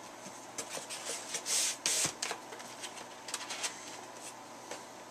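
Cardboard action-figure box and its plastic insert being handled: rustling and scraping with scattered light taps, loudest about one and a half to two seconds in.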